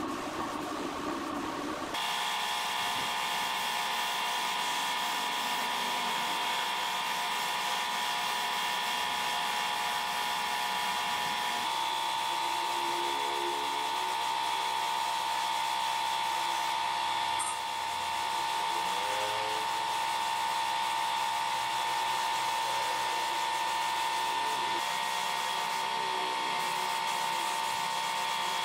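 Compressed-air gravity-feed spray gun hissing steadily as it sprays finish onto the wood. The hiss starts about two seconds in and shifts slightly in tone now and then.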